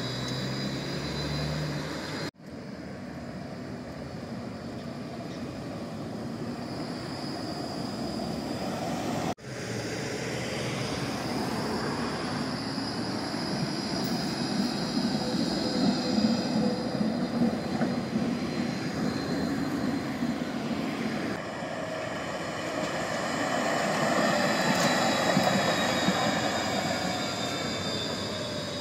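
An electric tram running along a street: a steady rolling rumble from the wheels on the rails, with the high whine of its traction motors, loudest as it passes close by. The sound breaks off abruptly twice, where shots are cut.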